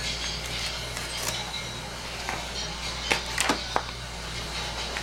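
Laptop screen parts being handled: a few sharp clicks and taps about three seconds in, over a steady hiss and low hum.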